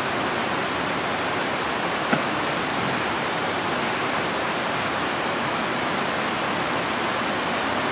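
Rain hitting the roof, a steady even hiss, with one light click about two seconds in.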